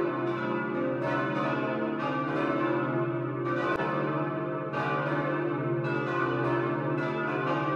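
Several church bells ringing together in a steady peal, strokes overlapping continuously.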